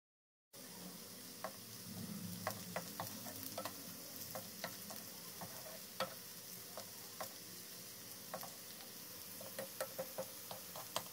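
Sliced onions frying in oil in a non-stick wok while a wooden spatula stirs them: a faint steady sizzle with scattered sharp clicks and taps, starting about half a second in.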